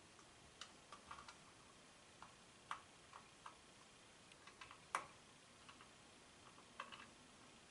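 Faint, irregular small clicks and taps of a precision T5 Torx screwdriver working tiny screws out of a plastic camera battery compartment, the loudest about five seconds in.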